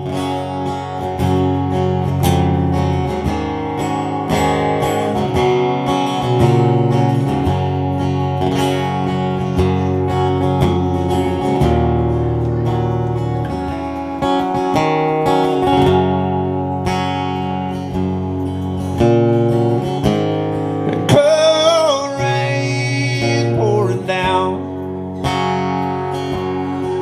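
Acoustic guitar strumming chords in an instrumental break of a slow country song, with a brief wavering melody line above the guitar about three quarters of the way through.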